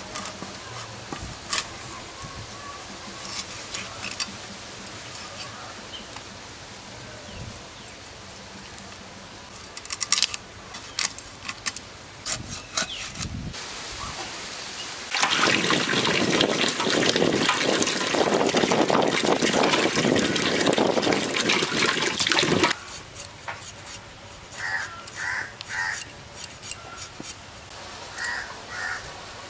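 Water poured out and splashing steadily for about seven seconds, starting about halfway through, with a few scattered knocks and clatters before it.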